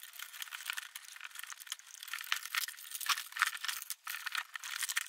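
Faint rustling and small irregular clicks of red and black wires being pulled through a drilled hole in a plastic ride-on toy's body, the wires rubbing and ticking against the plastic.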